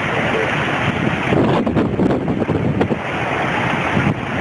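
Strong storm wind buffeting the microphone in rough, uneven gusts.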